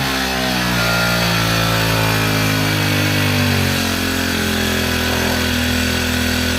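Lawn mower's small petrol engine running steadily, its speed dropping a little just after the start and again partway through.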